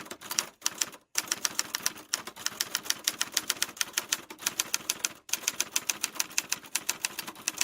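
Typewriter keys clacking in a quick, even run of about six strokes a second, with two brief breaks, about a second in and about five seconds in.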